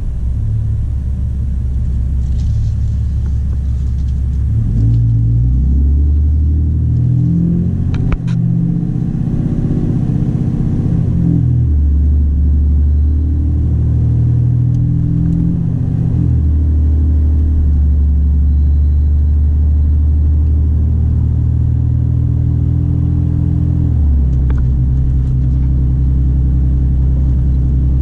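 A straight-piped Cummins 6.7-litre turbo-diesel inline-six in a 2017 Ram 2500, heard from inside the cab as the truck accelerates on the road, with a deep, steady drone. Its pitch steps and slides at a few gear changes, then holds steady between them.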